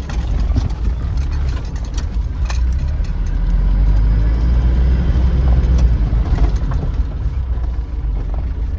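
Truck engine and road rumble heard from inside the cab while driving, a steady low drone with scattered rattles and knocks from the cab.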